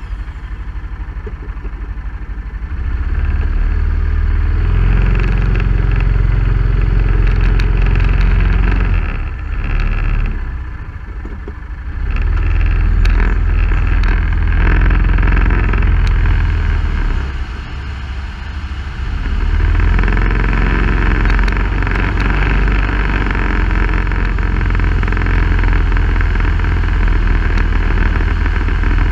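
Off-road vehicle engine running under throttle over a rough dirt trail, with a heavy low rumble from the ride. The engine eases off twice, around ten and eighteen seconds in, then picks up again.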